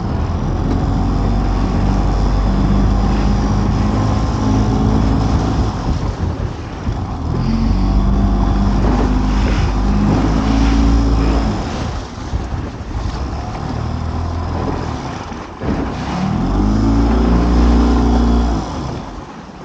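A small boat's outboard motor running under way, opened up in spells of several seconds and eased back between them; near the end its pitch climbs and then falls away.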